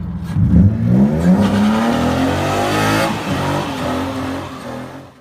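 Car engine revving: its pitch climbs steadily for a couple of seconds, then falls back, and the sound cuts off sharply near the end.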